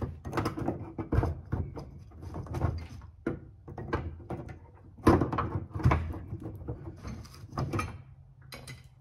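Irregular metallic knocks and rattles from the trunk latch and handle mechanism of a 1949 Chevrolet Fleetline being worked from inside the trunk, with the loudest knock about five seconds in.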